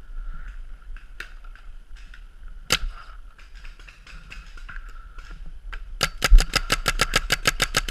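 Paintball marker firing: a single sharp shot about three seconds in, then a rapid string of shots at roughly ten a second over the last two seconds, with fainter scattered shots in between.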